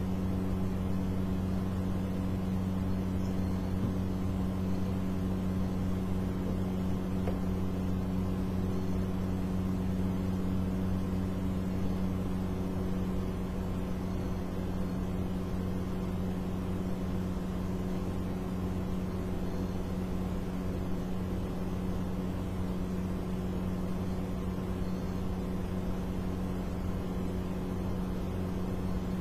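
A steady low electrical hum that holds one pitch and does not change.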